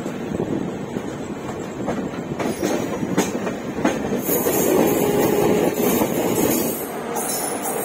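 Passenger train coaches running over the track, wheels clattering over rail joints and points with a run of sharp clicks, the rush of noise growing louder from about four seconds in.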